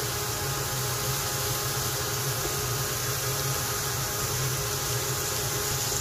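Sliced chicken breast and onions frying in a pan with a steady hiss, over the steady hum of a fan.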